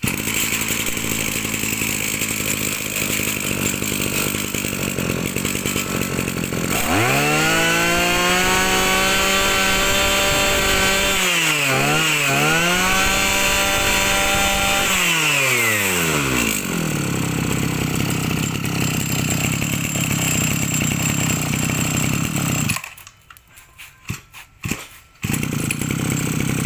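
Kawasaki TG28 two-stroke brush cutter engine running at idle, then revved up to high speed about seven seconds in and held there with two quick dips before dropping back to idle. Near the end it cuts out for a couple of seconds with a few sputters, then runs again.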